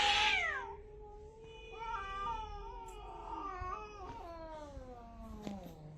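A cat yowling in long, drawn-out, wavering calls. A loud yowl rises and falls at the start, then a longer, lower one wavers and slides down in pitch near the end.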